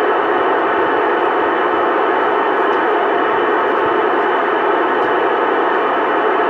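Two-way radio receiver static: a steady hiss with no voice coming through.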